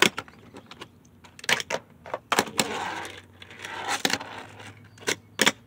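Tech Deck fingerboard clacking on cardboard pen boxes and a plastic tote lid: a series of sharp clacks as the board's tail and wheels hit down, several in quick pairs, with short rolling stretches between.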